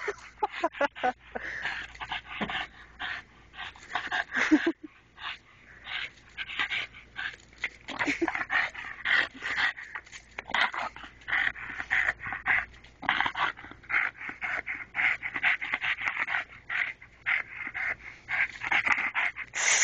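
A dog panting in quick, short breaths, with a brief pause about five seconds in.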